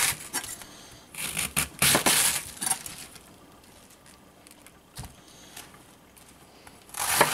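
Chef's knife cutting through raw cabbage on a plastic cutting board: crisp crunching as the blade goes through the leaves in the first three seconds and again near the end, with a single light knock about five seconds in.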